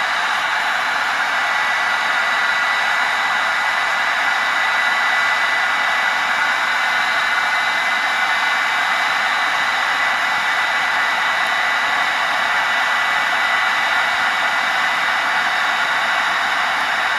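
An old hair dryer running steadily as a blower forcing air into a coal fire: a constant rush of air with a thin high whine from its motor.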